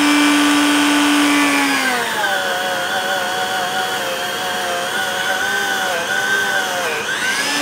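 Handheld rotary tool spinning a small brass wire wheel against an aluminium piston from an antique Briggs & Stratton 5S engine, cleaning it up. The motor's whine drops in pitch about two seconds in as the brush bears on the piston, and rises again near the end.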